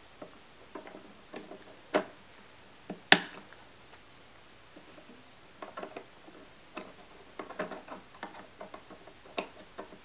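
RAM modules being pressed into the memory slots of a 2013 27-inch iMac: two sharp clicks about a second apart as modules snap into place, then a run of lighter clicks and rattles as the modules are handled and pushed down.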